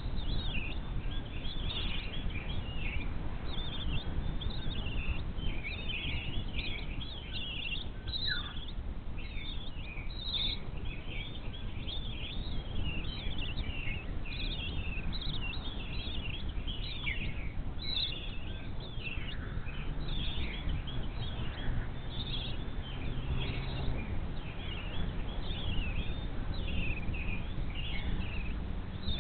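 Many birds chirping and calling, with dense overlapping short chirps, over a steady low rumble.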